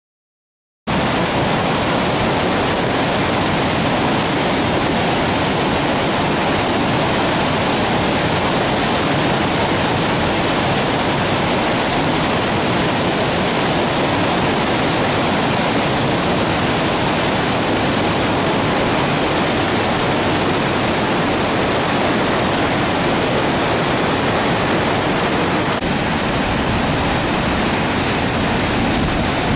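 River in flood pouring over a weir, a loud, steady rush of churning floodwater swollen by three days of rain. It starts suddenly about a second in.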